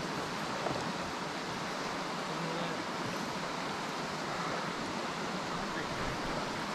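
Shallow mountain creek running over rocks: a steady, even rush of flowing water.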